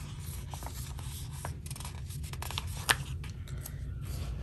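Hands handling a paper sticker and peeling it from its backing sheet: faint scratchy rustling and rubbing, with one sharp click about three seconds in, over a steady low hum.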